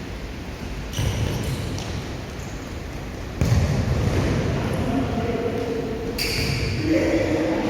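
A futsal ball being kicked and bouncing on the court, three separate thuds about a second in, in the middle and near the end, with a few faint shouts late on.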